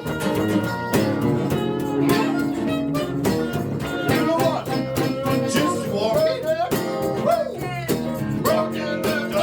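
Live blues band playing an instrumental break: rhythmic strummed guitar with a lead line of bent, wavering notes, typical of a blues harmonica solo, most prominent from about four seconds in.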